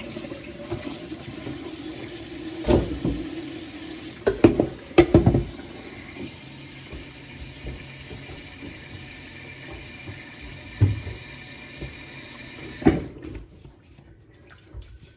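Water running steadily from a tap into a sink, with several clunks like dishes or pots being handled under it. The water cuts off near the end.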